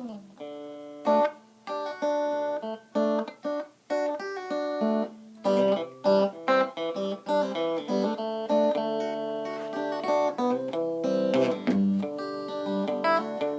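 Electric guitar (Stratocaster) played clean through a Marshall Class 5 five-watt amp, in the second pickup position: a DiMarzio Virtual Solo stacked humbucker combined with a Lace Sensor, a silenced single coil. A run of picked single notes and chords that ring out.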